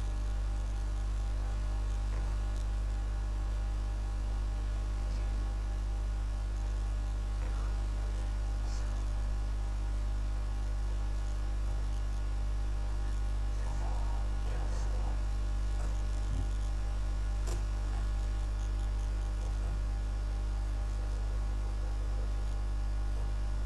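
Steady electrical mains hum with a stack of overtones, running unchanged throughout, with a few faint clicks scattered over it.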